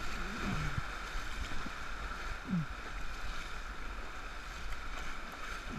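Whitewater rapid rushing around an inflatable raft, with a steady churning rush of water and splashing against the bow.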